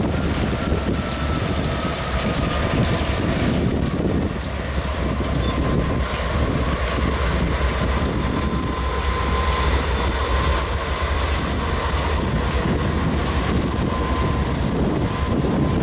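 A string of diesel freight locomotives, CSX units with three EMD GP-series among them, passing steadily with their engines running, over a heavy low rumble of wind on the microphone in the rain. A faint steady whine sits above the engine sound through the middle.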